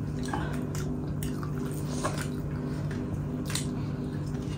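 Wet chewing and mouth sounds of someone eating, a few soft smacks and clicks over a steady low hum.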